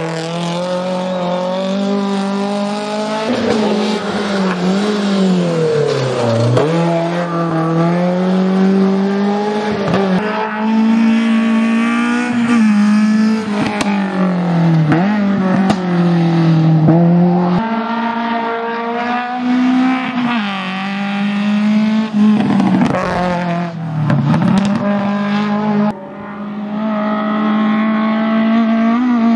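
Racing car engine running hard through the gears. Its pitch climbs steadily, then drops sharply at each gear change, about every seven or eight seconds, with several quick dips and swoops in between.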